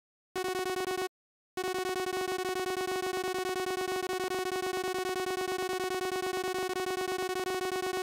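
iAbyssal photo-synthesizer app on an iPad playing a single steady, buzzy tone that pulses rapidly and evenly. It sounds for under a second, drops out briefly, then comes back and holds.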